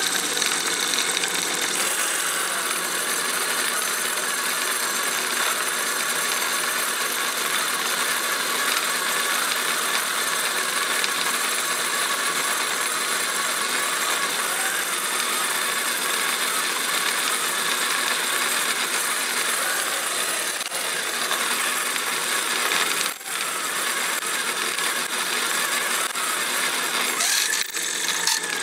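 Drill press running steadily as its bit bores into a clamped aluminum block, cutting easily with a baby-oil and paraffin-oil cutting fluid. The noise dips briefly about 23 seconds in.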